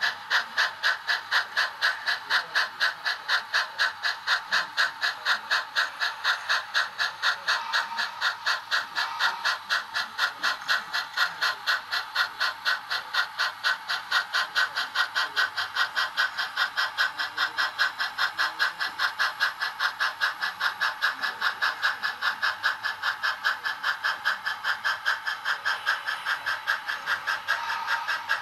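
HO-scale model geared steam locomotive chuffing steadily as it runs, about three chuffs a second.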